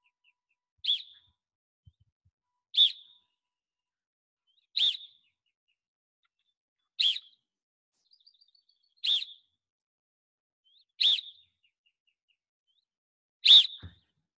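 Seven short, sharp blasts on a sports whistle, about every two seconds. Each blast is the cue for one quick repetition of a lacrosse draw motion, pop and reset.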